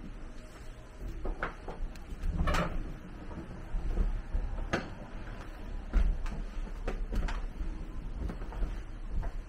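Footsteps and creaks on the wooden plank floor of a 1928 partly wooden railcar: irregular short knocks, one or two a second, over a low rumble.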